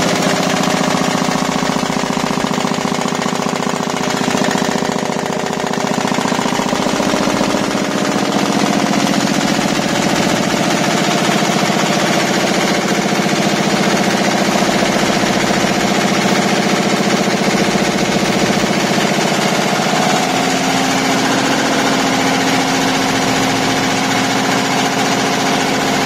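Multi-needle quilting embroidery machine (64 needles) stitching, a steady fast clatter of the needle bars over the hum of its drive.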